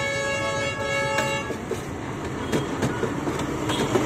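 A loud horn held in one long blast that stops about a second and a half in, over steady street traffic noise. A few sharp clinks follow later on, the sound of steel plates being handled.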